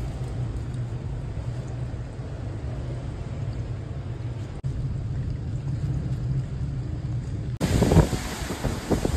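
Hurricane-force wind making a low, steady rumble, with churning storm-surge water beneath it. About seven and a half seconds in it cuts to louder, gusty wind buffeting the phone's microphone.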